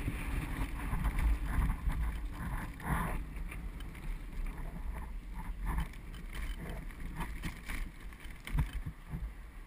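Road rumble and wind buffeting on a head-mounted camera inside a bicycle trailer being towed over pavement, with scattered rattles and knocks from the trailer frame over bumps.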